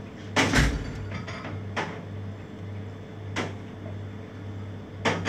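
Knife work on a melon on a plastic cutting board: a heavy knock about half a second in, then three sharp clicks about a second and a half apart, over a steady pulsing low hum.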